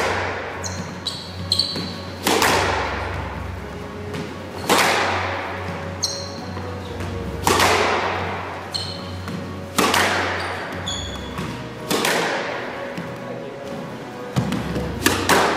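Squash balls being struck with a racquet in a feeding drill, a sharp crack echoing around the court about every two to three seconds, with short high squeaks between. Background music plays underneath.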